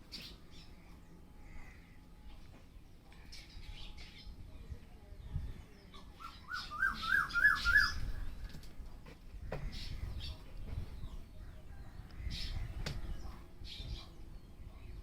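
Birds calling outdoors: scattered short high chirps, with a loud run of about five quick rising squawking notes about halfway through.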